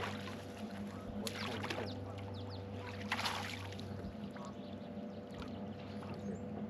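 Steady low hum of a fishing boat's motor, with two brief sloshes of water about one and three seconds in.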